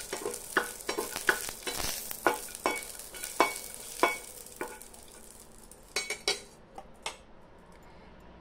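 Garlic cloves sizzling in hot oil in a frying pan while a metal spatula stirs them, knocking and scraping against the pan about ten times. The sizzle is strongest in the first few seconds and dies down after about five seconds; the last knocks come around six and seven seconds in.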